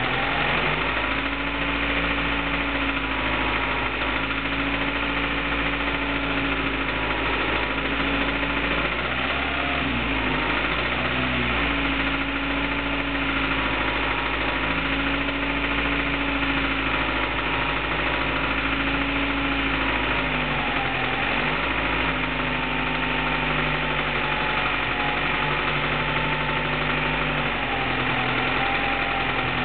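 Honda Prelude SH's 2.2-litre four-cylinder VTEC engine running steadily at about 1500 rpm with a knocking sound from the motor. Its speed wavers slightly a couple of times.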